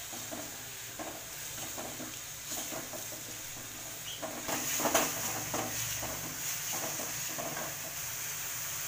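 A wooden spatula scraping and stirring onion paste frying in oil in an aluminium kadhai, in irregular strokes that are busiest about five seconds in, over a steady sizzle. The paste is being browned toward golden.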